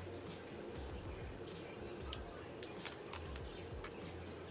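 Faint clicks and taps of a small glass perfume-oil roller bottle being handled and its cap taken off.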